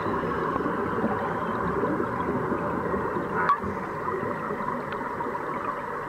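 Steady underwater rush and bubbling of air streaming from divers' breathing hoses, with one short click about three and a half seconds in.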